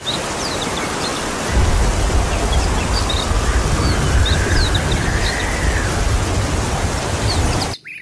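Storm ambience: a steady hiss of rain and wind, with a low rumble that sets in about a second and a half in and short bird chirps over the top. It cuts off suddenly near the end.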